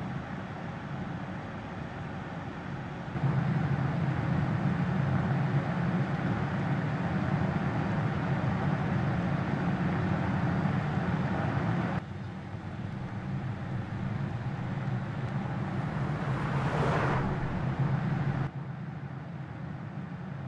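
Mercedes-Benz GLE SUV driving: a steady hum of engine and road noise that steps abruptly louder or quieter a few times. Near the end comes one brief whoosh that rises and falls.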